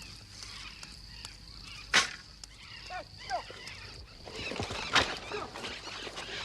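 Wild outdoor ambience: a steady high buzz with scattered animal and bird calls, broken by two sharp cracks, one about two seconds in and one about five seconds in.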